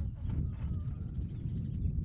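Wind buffeting the microphone in open country: a steady low rumble that rises and falls, with a few faint high chirps over it.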